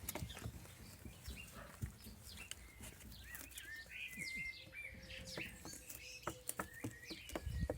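Small birds chirping, in short high falling notes bunched about three to seven seconds in, over scattered light clicks and taps.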